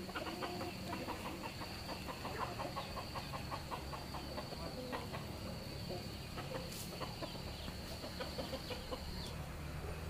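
Chickens clucking in a run of short, quick notes, over a steady high-pitched insect drone.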